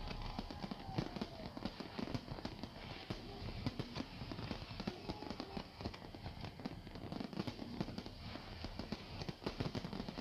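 Fireworks display going off: a dense, irregular run of bangs and crackling with no pause.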